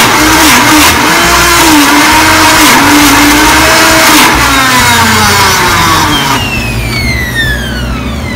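Blendtec blender running at high speed on a thick frozen acai bowl mix, its pitch dipping and wavering as the dense mix loads the blades while the Twister lid is turned. Past the middle the motor slows, and near the end it spins down with a falling whine.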